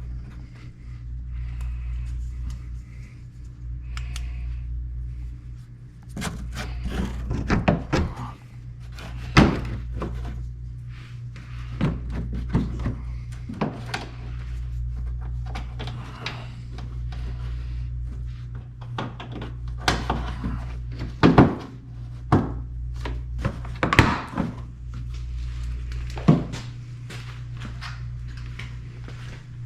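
Metal clunks, knocks and taps from truck body panels and hand tools as a fender and door are fitted back on, over a steady low hum that swells and drops every few seconds.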